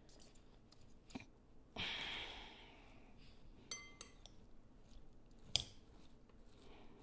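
Two metal forks shredding cooked chicken in a glass bowl: faint scraping and light clinks of the forks against the glass, the sharpest clink about five and a half seconds in.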